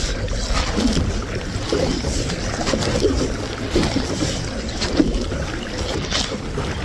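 Wind buffeting the microphone with a steady low rumble, over the splash and slosh of water as a kayak is paddled into a headwind.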